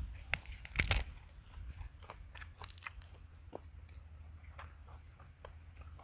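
Close-up chewing and biting of crisp fresh greens such as lettuce, with irregular crunches, the loudest about a second in. Under it is a steady low rumble of wind on the microphone.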